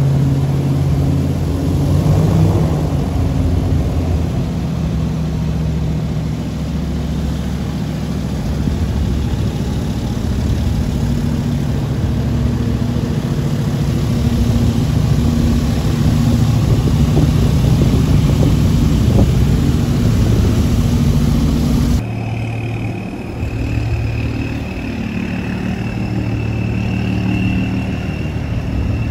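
Airboat engine and propeller running steadily as the boat cruises through floodwater. An abrupt change near the end gives way to a quieter engine, a pickup truck wading through the flood, with a faint steady high whine over it.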